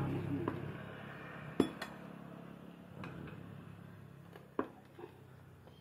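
A few sharp metallic clinks of workshop tools knocking together, spread out and irregular, over a faint steady low hum. A vehicle's engine fades away at the start.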